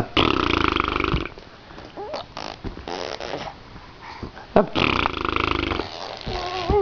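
Baby making two long, raspy, growly vocal noises, like a rattling snore, each about a second long: one just after the start and one about five seconds in, with small squeaks between.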